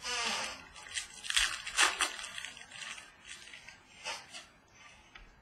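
Trading cards and their packaging being handled: crinkly rustling bursts and scattered clicks, opening with a short rising squeak.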